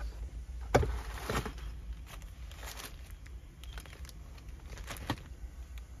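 A car's glove compartment latch clicks open about three-quarters of a second in, followed by a series of short crinkling rustles from a plastic zip-top bag being handled.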